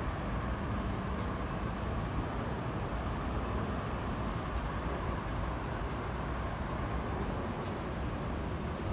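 Steady noise of road traffic along a city street: the continuous hum of passing cars, with no single vehicle or event standing out.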